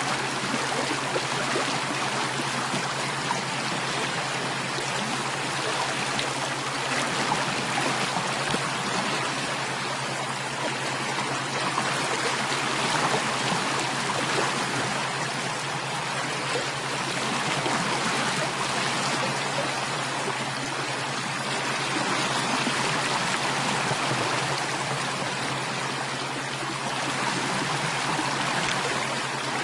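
Steady flowing stream water, an even rushing and trickling, with a steady low hum beneath it.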